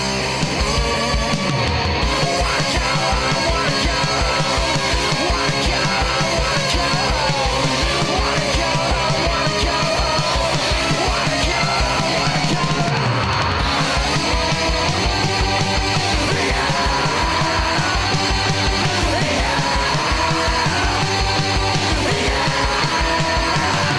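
Loud heavy rock music: electric guitars and drums playing, driven by a fast, steady drum beat.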